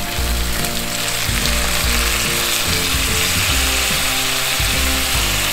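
Shrimp, sausage and garlic sizzling steadily in butter and olive oil in a hot frying pan, just after lemon has gone in.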